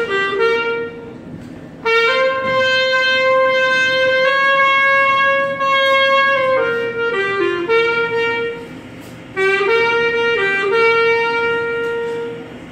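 Solo clarinet playing a melody of mostly long held notes, including one note held for about four seconds in the middle, with two short breaks in the line. The phrase ends shortly before the end.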